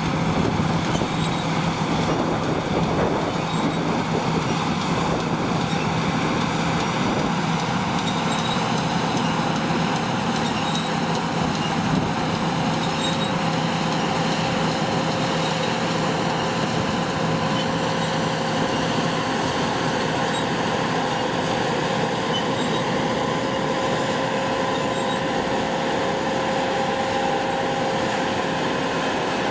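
Harvest machinery running steadily: a continuous engine and mechanical drone with no pauses. A low hum fades out about eight seconds in, and a higher steady whine stands out later.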